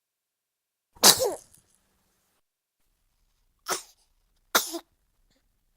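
A young baby sneezing three times: one louder sneeze about a second in, then two quicker, softer sneezes close together near the end.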